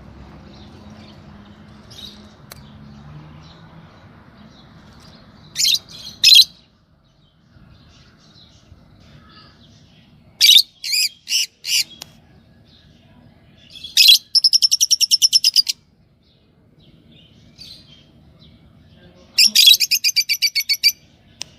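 Yellow Fischer's lovebirds calling in loud, shrill bursts: two sharp calls, then four quick chirps, then two rapid chattering trills of many repeated notes, about nine a second.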